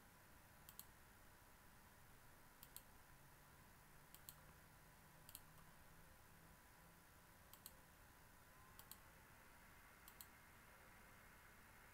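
Faint computer mouse button clicks, about seven, each a quick press-and-release double tick, spaced a second or two apart over a low steady hiss.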